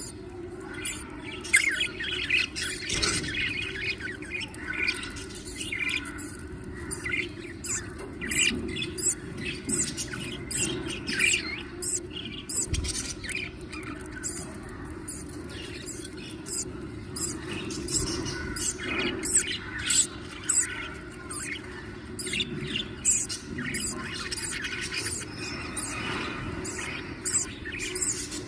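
Budgerigars chirping and squawking in many short, rapid calls as a mother budgie feeds her newly hatched chicks, over a steady low hum.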